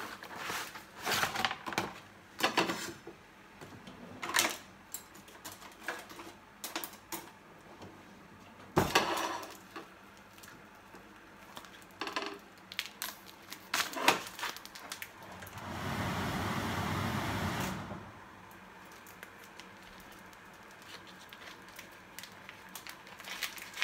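Kitchen handling sounds: a cardboard box opened and a plastic pack of frozen seafood handled and cut open with a knife over a plate, with scattered clicks and knocks of knife, plate and packaging. About two-thirds of the way through there is a steady rushing noise lasting about two seconds.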